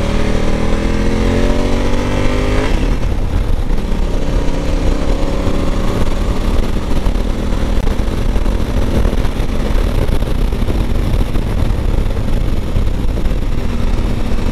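Motorcycle engine under hard acceleration: its pitch rises steadily until a sudden drop at an upshift about two and a half seconds in, then climbs again more slowly in the next gear, over a steady rush of wind noise.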